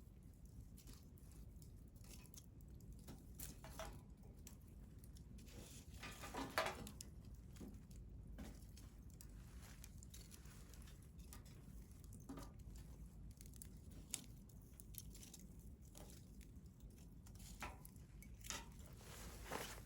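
Wood fire crackling, with scattered sharp pops over a low steady rumble; the loudest pop, about six and a half seconds in, trails off in a short hiss.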